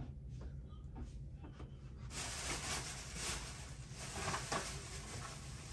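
Scratchy rustling that starts about two seconds in and stops near the end, over a low steady hum.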